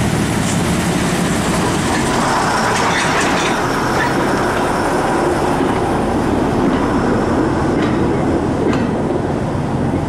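Andrew Barclay 0-4-0 diesel shunter hauling two goods wagons slowly past. Its engine note fades as the loco goes by, leaving the rumble of the wagon wheels on the track, with a few sharp clicks over rail joints near the end.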